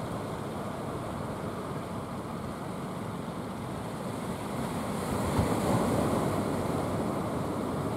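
Sea surf washing on the beach, a steady rushing wash with one wave breaking louder about five seconds in.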